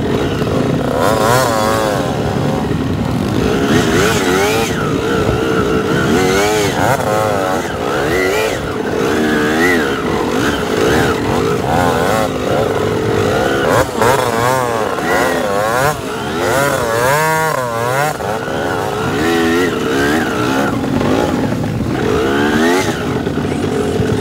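Dirt bike engines revving up and down repeatedly under load as the bikes climb a steep, rough hill trail.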